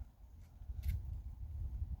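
A single sharp click or knock a little under a second in, over a steady low rumble.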